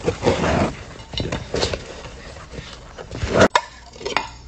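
White foam packing sheets rustling and rubbing as ceramic plates are lifted out of their box, then a sharp clink about three and a half seconds in as one plate is set down onto another, with a lighter knock just after.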